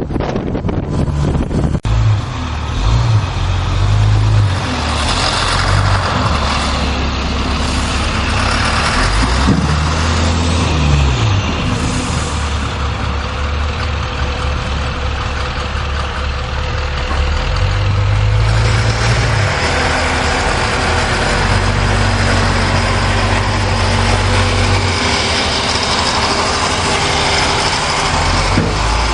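A motor vehicle's engine running, its low hum shifting pitch in steps, under a steady rushing noise.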